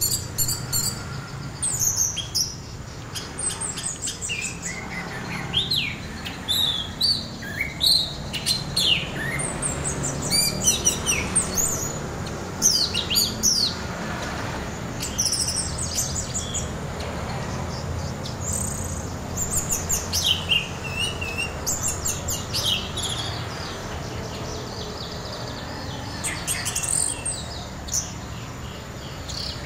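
Orange-headed thrush singing in rapid, broken phrases of short, sharp chirps and quick downward-slurred whistles, the chopped 'trotol' style of song, over a steady low hum.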